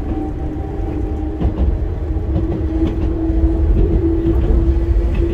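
Enoshima Electric Railway 300 series train running along the track, heard from inside the front car. There is a steady low rumble with a held hum, and short clicks of the wheels over the rails now and then.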